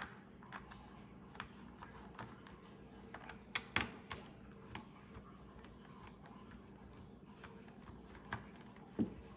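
Scattered small clicks and taps of plastic cassette parts being handled and fitted as an Elcaset tape shell is reassembled, with the loudest click a little under four seconds in, over a faint steady hum.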